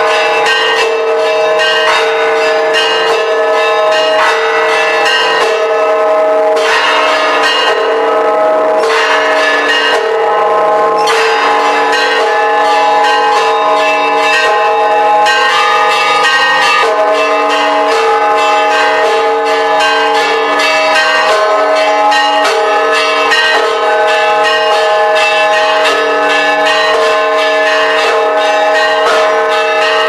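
Church bells of the Church of the Holy Sepulchre ringing a continuous peal: several bells struck in quick succession, their tones ringing on and overlapping.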